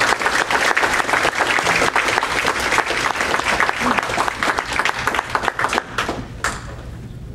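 Audience applauding, many hands clapping fast, then thinning out and fading near the end.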